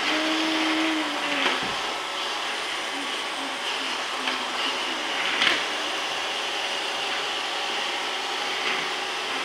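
Robot vacuum cleaner running with a steady whirring hum. A couple of light knocks come from a toy car on the tile floor.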